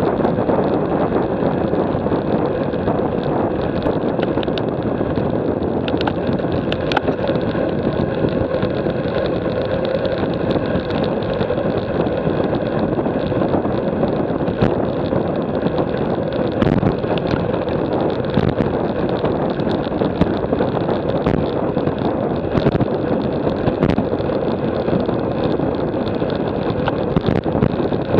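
Steady rush of wind buffeting a bike-mounted action camera's microphone, mixed with tyre and road noise from a road bicycle riding at speed, with scattered small clicks and knocks.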